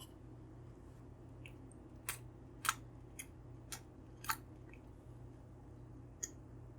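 A handful of short, crisp clicks, about six of them spread over four seconds, the loudest about a third of the way in, over a faint steady hum.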